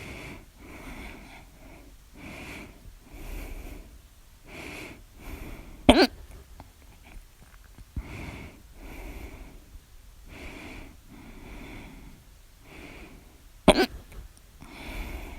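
A woman's loud hiccups, two sharp ones about eight seconds apart, with her heavy, wheezy breathing going in and out between them.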